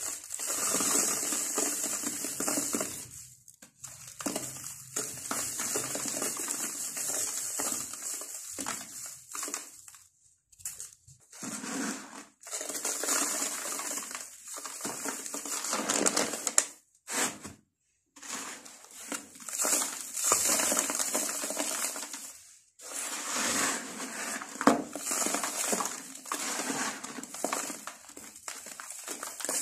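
Dry sand-cement mix crumbled and crushed between the fingers: a gritty, crackling crunch of lumps breaking into powder, in stretches of a few seconds with several brief pauses.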